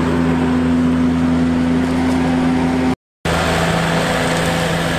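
A loud, steady motor-like drone with a constant low hum, cut off completely for a moment about three seconds in.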